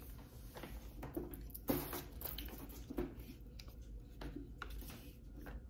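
Handling noise from a cardboard gimbal box and a folded smartphone gimbal being moved in the hands: light rustles and taps, with one sharper knock just under two seconds in.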